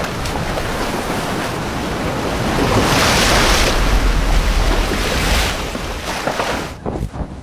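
Rushing noise of surf and wind, with wind rumbling on the microphone. The rush swells about three seconds in, then drops off sharply near the end.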